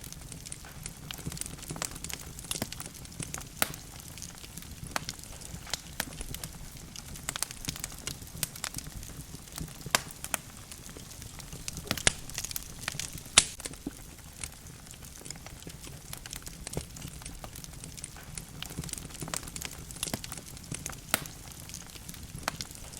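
Wood logs burning in a fireplace, crackling and popping at irregular intervals over a low steady rumble of the flames, with a few louder sharp pops partway through.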